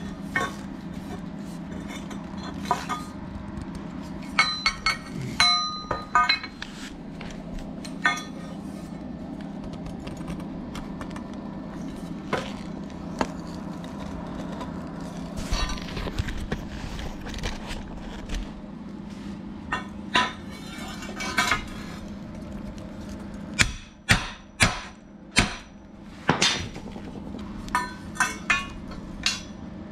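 Steel tubing being handled and knocked together: scattered clinks and knocks, some ringing, and a run of loud sharp knocks about three-quarters of the way through, over a steady low hum.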